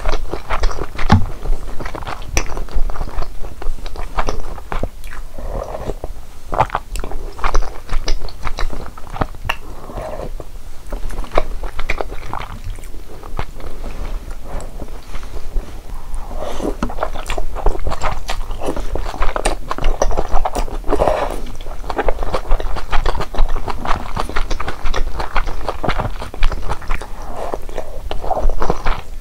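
Close-miked eating sounds of malatang: steady chewing with many small wet clicks and smacks, and now and then a crunchy bite.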